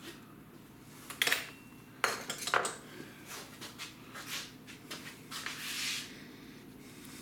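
Hands disassembling a Stihl MS462 chainsaw: metal and plastic parts clicking and clinking against the housing, with a few sharp knocks about one and two seconds in and a brief rustle near the end.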